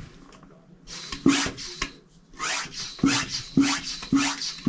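Manual air pump being worked stroke after stroke to inflate the new rear tire's inner tube. Each stroke is a short hiss that rises in pitch, with a low knock as it bottoms, about two strokes a second.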